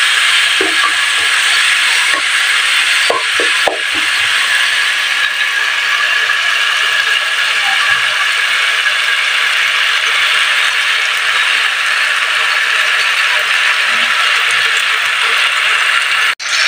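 Zucchini, onion and tomato sizzling in hot oil in a nonstick wok, a steady hiss, with a few taps of the spatula against the pan in the first few seconds.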